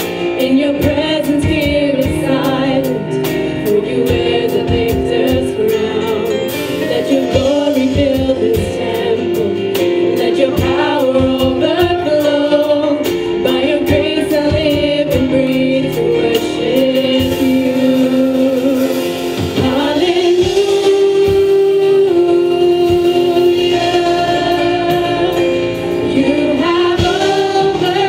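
Women's voices singing a Christian praise and worship song together, accompanied by strummed acoustic guitar.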